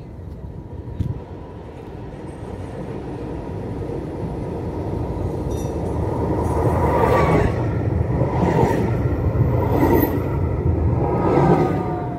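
Tram running along its rails, growing louder as it draws near and passes, with rattling from the wheels and a whine that falls in pitch near the end.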